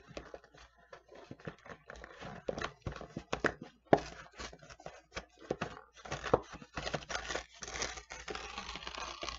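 Cardboard snack box being torn open by hand, a run of irregular tearing and crackling with crinkling packaging, busiest near the end.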